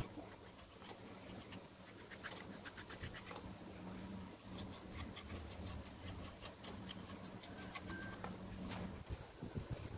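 Faint scratching of a brush rubbing over a turned wooden piece on a lathe, over a low steady motor hum that stops near the end.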